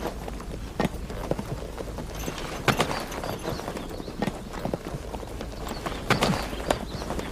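A horse's hooves clip-clopping on hard ground as it is ridden at a walk. The knocks are irregular, with the loudest hoof strikes a little under 3 seconds in and about 6 seconds in.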